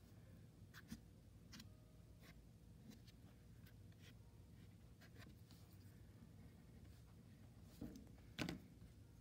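Faint scratching strokes on paper thickly coated in oil pastel, a tool drawn across the surface in short separate strokes, with a louder scrape about eight and a half seconds in.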